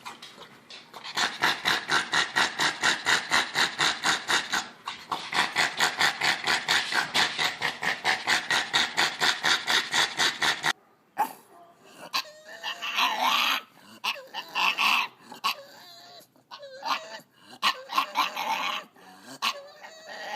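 A dog making fast, even, breathy huffs, about four or five a second, then after an abrupt cut a dog's wavering, whining and grumbling cries.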